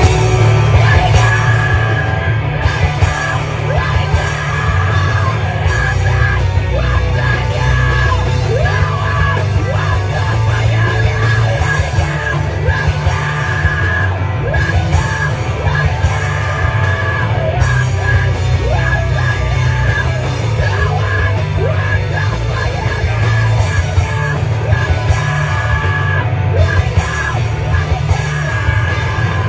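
A heavy punk band playing loudly live, with distorted guitars, bass and drums under a singer screaming.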